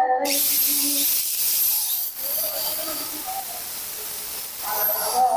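Bosch GWS 7-100 angle grinder running free with no disc fitted, test-run after a bearing box replacement: a steady hissing whir from the motor and fan that starts suddenly just after the start and dies away near the end.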